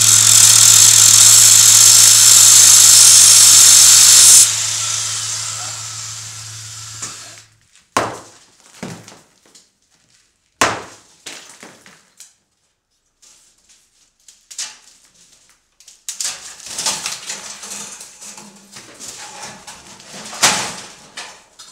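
A loud wall of distorted noise with a steady low hum cuts off sharply about four seconds in and fades away. Then come scattered knocks and thuds of wooden boards being handled and set down, busier with clattering and scraping near the end.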